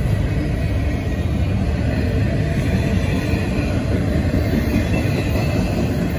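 Double-stack intermodal freight train's loaded container well cars rolling past, a steady, loud noise of steel wheels running on the rails.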